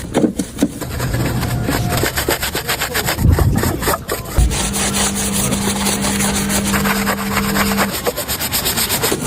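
Car repair work: rapid clicking and scraping of tools on metal, with a couple of thumps near the middle and then a steady hum, like a power tool running, for about three seconds.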